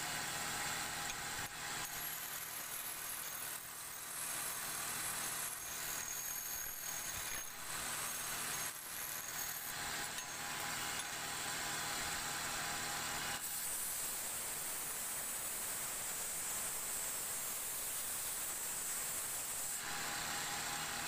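Wood lathe running, spinning a tapered wooden furniture leg, with the steady hum of the machine under the scraping hiss of the wood being worked. The scraping grows harsher from about two-thirds of the way in, then eases near the end.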